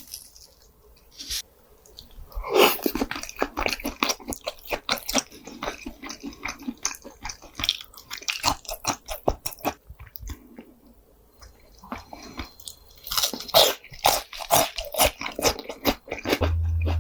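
Close-miked chewing of grilled pork jowl, crisp crunchy bites with wet chewing, in two spells with a lull between. A steady low hum comes in near the end.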